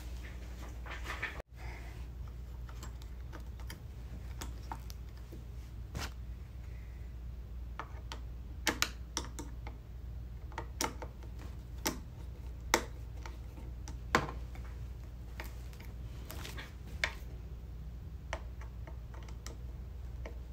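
Irregular light clicks and taps of a Phillips screwdriver and screw as a stand leg is fastened onto a flat-screen TV, over a low steady hum.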